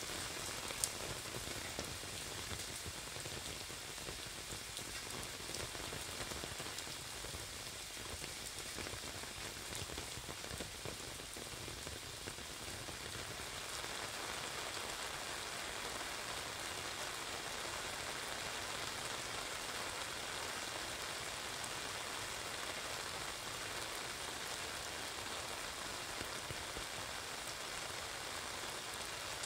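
Steady rain pattering on an umbrella and on wet pavement, with one sharp click about a second in. From about halfway through, the rain sounds fuller and denser.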